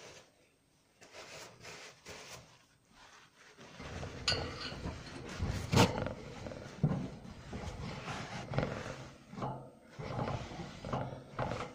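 Irregular rubbing and scrubbing of a white cloth wiping the sanitiser-sprayed plastic base tray of a guinea pig cage, starting about four seconds in, with one sharper knock or scrape a couple of seconds later.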